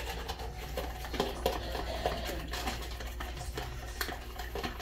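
Light, scattered clicks and taps of a spoon and a plastic container while onion ring batter is mixed, over a steady low hum.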